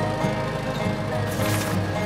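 Background music with steady held tones. About one and a half seconds in, a brief hiss of sand pouring from a toy excavator's bucket into a plastic trailer.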